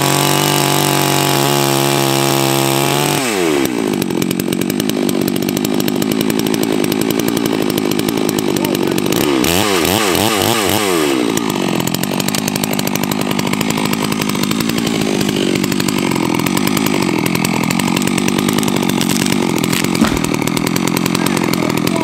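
Holzfforma G660, a 93 cc two-stroke clone of the Stihl MS660 chainsaw, running: held at high, steady revs for the first three seconds, dropping about three seconds in, revved up and down a few times around ten seconds, then running steadily on.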